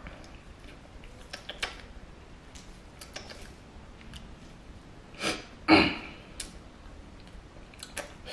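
Sipping an iced blended coffee drink through a straw from a plastic cup: scattered faint clicks of long nails and hands on the cup, and two short breathy sounds a little past halfway through, the second the loudest.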